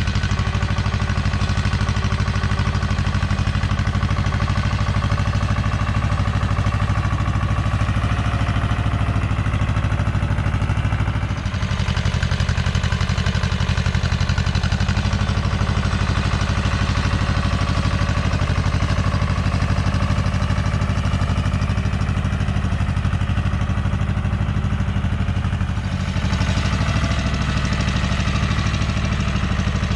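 Goldoni 933 RS DT compact tractor's diesel engine running steadily under load as it pulls a tine scarifier through the soil. The engine note dips briefly twice, once about a third of the way in and again near the end.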